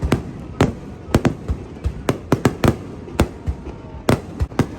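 Aerial fireworks exploding: a rapid, irregular string of sharp bangs, several coming close together.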